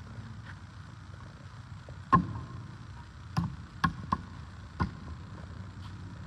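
Five sharp knocks at uneven intervals, the first the loudest, over a steady low hum.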